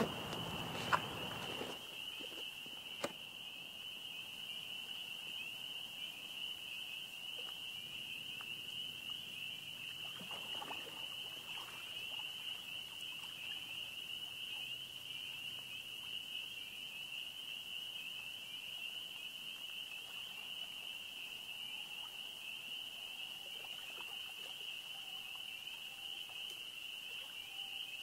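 A steady, high-pitched insect chorus, a continuous even buzz, runs unbroken throughout. In the first three seconds there is rustling and two sharp clicks.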